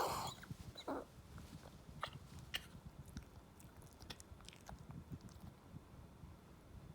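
Small Maltese dog coughing hard at night: a sharp hacking burst right at the start and a second one about a second in, followed by faint clicks and smacks. The cough goes with the dog's heart disease and congestive heart failure.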